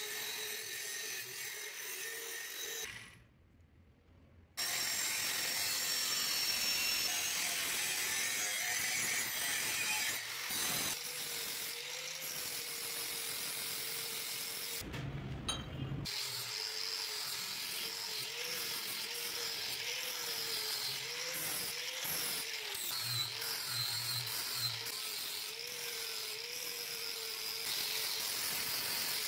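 Handheld angle grinder cutting and grinding steel: a steady motor whine under a harsh grinding rasp, its pitch wavering as the disc is pressed into the metal. The sound drops out for about a second and a half around three seconds in.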